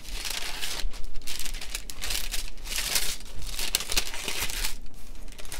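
Thin notebook pages being turned and leafed through by hand, rustling and crinkling in several short bursts.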